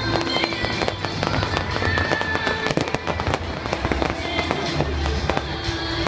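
Fireworks popping and crackling in quick, irregular succession, with music playing underneath.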